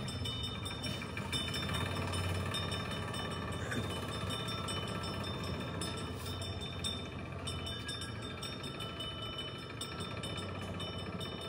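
Motorcycle engine idling steadily, with a light metallic rattle over the running.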